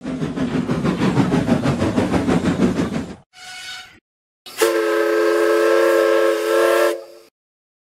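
Steam locomotive running with rapid, even chuffing at about six beats a second for about three seconds. After a brief faint tone, its steam whistle blows one long blast of several tones sounding together, which cuts off about three seconds later.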